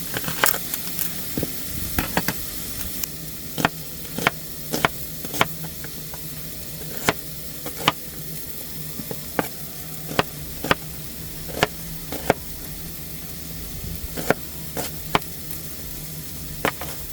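Food sizzling as it fries in a pan, with sharp irregular clicks and taps of a utensil stirring against the pan roughly every second.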